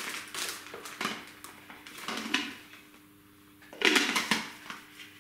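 Clear plastic packaging bag crinkling and rustling as a spray gun is unwrapped by hand, in irregular bursts with the loudest crinkling about four seconds in.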